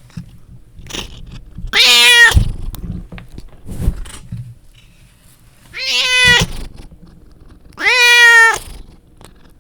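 Domestic cat meowing three times: once about two seconds in, then twice more close together near the end. Each meow is short, about half a second.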